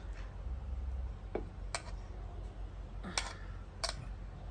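A metal spoon clinking against steel plates as curry is served, three light clinks.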